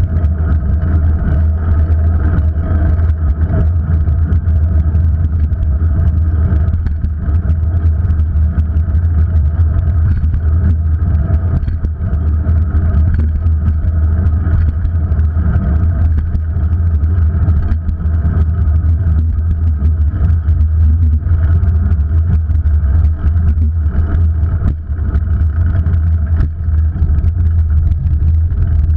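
Loud, steady low rumble of a moving vehicle and road noise, picked up by an action camera mounted on it.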